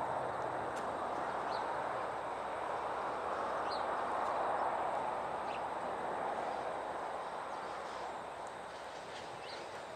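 Outdoor background noise: a steady rushing sound that swells about halfway through and then slowly fades, with a few short, faint bird chirps.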